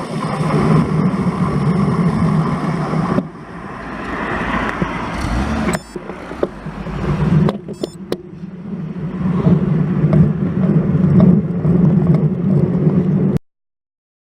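Wind rushing over an action camera's microphone with tyre and road noise from a road bike on the move, the clip changing abruptly a few times where shots are cut together. It cuts off to silence about a second before the end.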